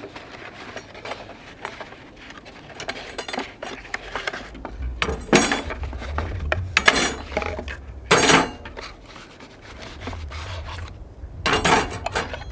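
Metal rotisserie skewers and kit parts being handled, clinking and clattering, with several louder sharp knocks about five, seven and eight seconds in and again near the end. A low rumble runs underneath from about halfway through.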